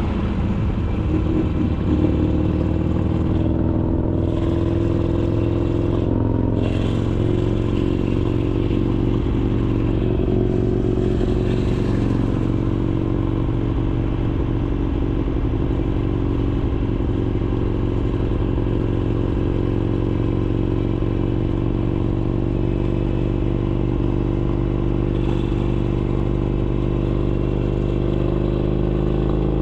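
Harley-Davidson Sportster Iron 883's air-cooled V-twin running through an RSD Roland Sands 2-into-1 exhaust while riding. The engine note shifts and dips briefly twice in the first seven seconds, then holds steady.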